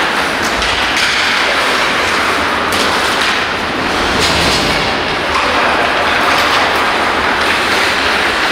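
Ice hockey play heard from rinkside: a steady loud rush of rink noise, with a few sharp clacks of sticks and puck.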